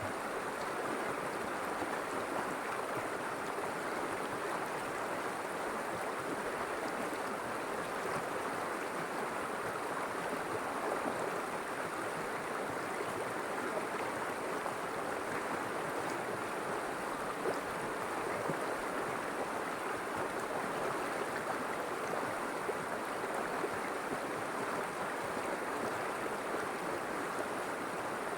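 River water flowing over stones: a steady rushing and babbling.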